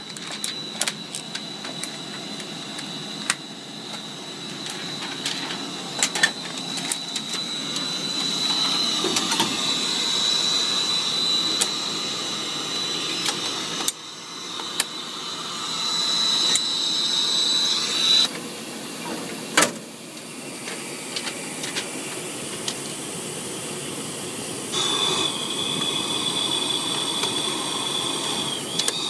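Clicks and knocks of the metal rollers, latches and guides of an IMAX 70mm projector being handled as it is threaded, over a steady machine hiss with a high whine. The whine stops suddenly past the middle, one sharp knock stands out soon after, and a slightly lower whine comes in near the end.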